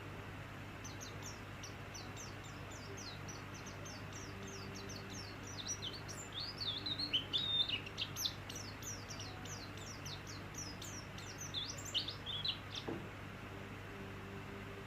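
White-eye (pleci) singing a fast, unbroken string of high chirps and trills. The song starts about a second in, is busiest in the middle and stops near the end, over a steady low hum.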